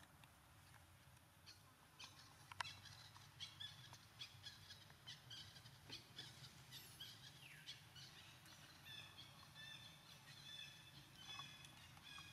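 Faint bird chirps and calls, many short high notes with one falling whistle about halfway through, and a few soft clicks, over a low steady hum.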